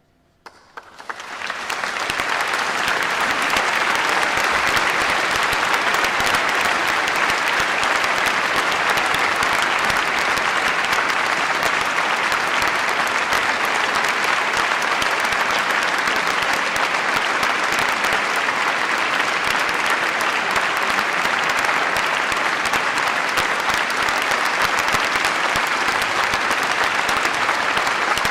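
Audience applause: a few claps come in out of near silence about half a second in and swell within a couple of seconds into full, even clapping.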